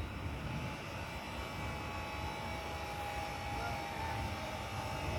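Airplane flying over: a steady rumble with a faint high whine.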